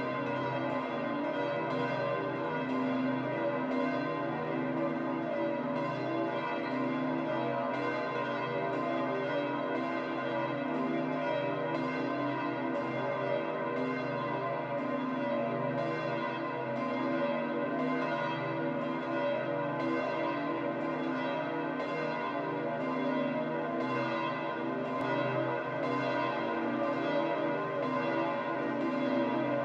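Bells of St. Peter's Basilica pealing: several large church bells struck over and over, their strikes overlapping into a continuous ringing.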